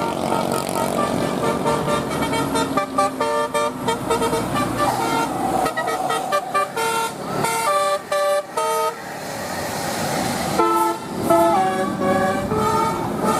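Indonesian bus 'telolet basuri' musical horn playing a quick tune in short stepped notes, in three runs, over vehicle noise.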